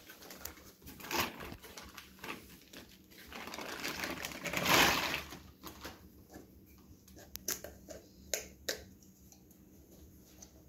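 Plastic packaging and paper crinkling and rustling as they are handled, loudest about halfway through. A few light clicks and knocks follow in the second half as a turbocharger is lifted and handled.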